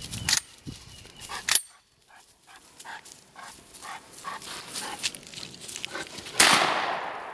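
A dog moving and breathing close by, then about six seconds in a single loud gunshot that rings off and fades slowly.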